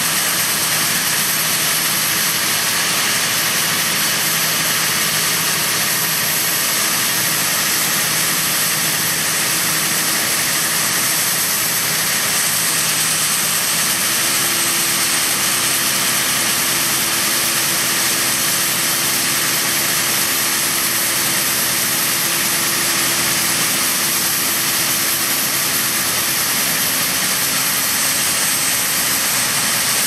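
John Deere 8270R tractor running steadily at the grain cart auger while shelled corn pours into a Richiger grain bagger's hopper, making a constant rushing hiss over the engine hum. About halfway through the engine hum shifts slightly in pitch.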